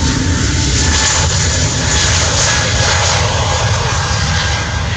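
Airbus A320neo's twin Pratt & Whitney geared turbofan engines at takeoff thrust as the airliner speeds down the runway and rotates: a loud, steady jet roar with a deep rumble and a faint high whine.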